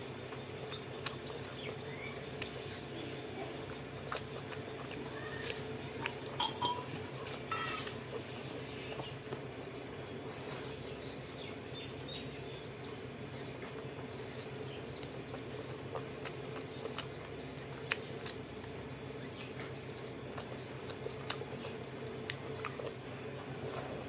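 Close-miked eating sounds: wet chewing, lip smacks and small clicks as pork curry and rice are eaten by hand, with the squish of fingers mixing rice into the curry. A steady low hum sits underneath.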